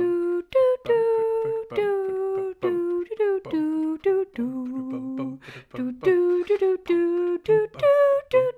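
A person's voice singing a wordless tune, held notes stepping up and down in a melody with short breaks between them.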